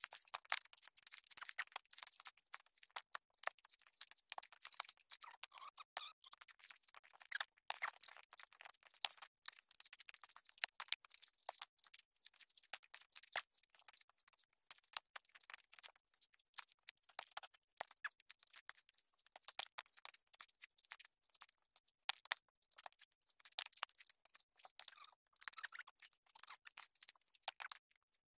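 Coconut husks being torn off on dehusking spikes: faint, irregular crackling and scratching as the fibres rip.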